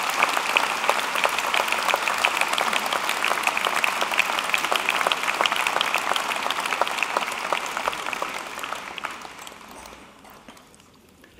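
Audience applause, many hands clapping steadily, then dying away near the end.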